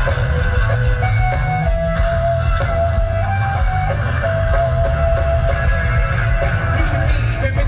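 Live rock band playing loudly over a festival PA, heard from far back in the crowd. An electric guitar plays a line of held notes that step from one to the next, over a heavy bass and drums, with no vocals.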